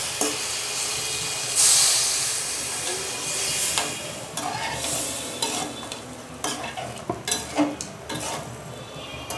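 Water poured into a hot aluminium karahi of spiced beef sizzles loudly as it hits the pan, about one and a half seconds in. A metal spatula then stirs the curry, scraping against the pan in short strokes.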